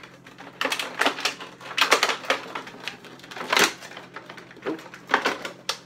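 Clear plastic packaging crinkling and crackling in irregular snaps as an action figure is worked out of its tray, with the sharpest crackles about two seconds in and again past three and a half seconds.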